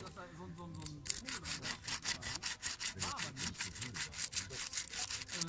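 A small pale stick being ground down on a rough concrete block: fast back-and-forth rasping strokes, about six a second, starting about a second in.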